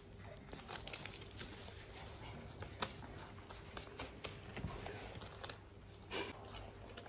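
Faint rustling and scattered small clicks of things being handled close to the microphone, under a low steady hum.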